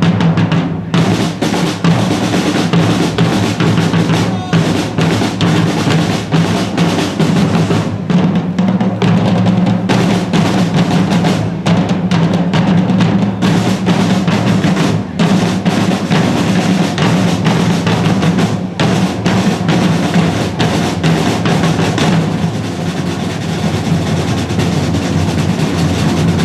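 A corps of large parade drums playing a dense, continuous beat with rolls. A little over 20 seconds in, the playing thins out and gets a bit quieter.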